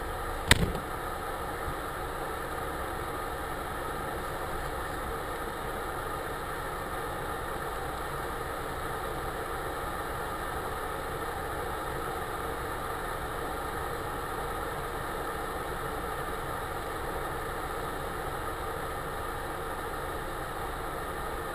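Car engine idling steadily while the car stands still, heard from inside the cabin, with one sharp click about half a second in.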